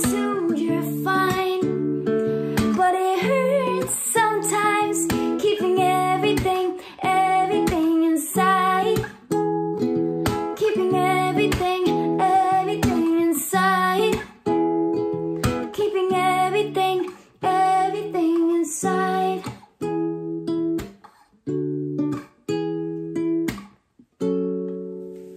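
Acoustic guitar playing picked chords as the song's instrumental ending, with a wordless sung line over it in the first few seconds. After about 19 seconds the chords thin out with gaps between them, and a last chord is left ringing as it fades.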